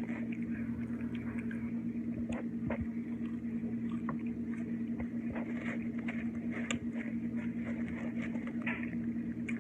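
A person chewing a burger close to the microphone: soft, wet, irregular mouth clicks and smacks. A steady low hum runs underneath.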